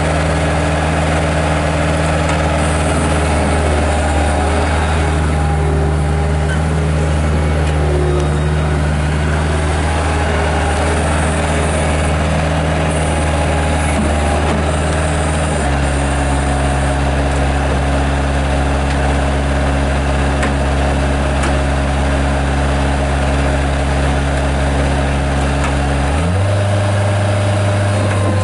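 Bobcat S175 skid steer's naturally aspirated Kubota diesel engine running steadily. It drops to a lower, steady speed about 16 seconds in and picks up again near the end.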